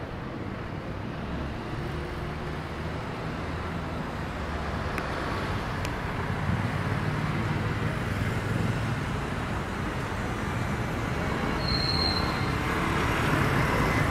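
City street traffic: cars, a bus and a motor scooter passing, a steady rumble that grows louder toward the end. A brief high squeak comes near the end.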